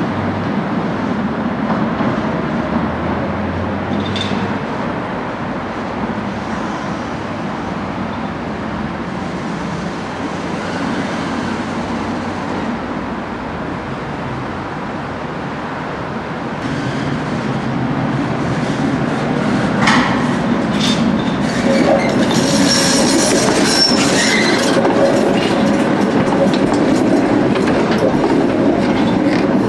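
Tatra tram approaching through a tunnel and passing close by. Its rumble grows louder over the second half, with wheels clicking over rail joints and a brief wheel squeal about two-thirds of the way through.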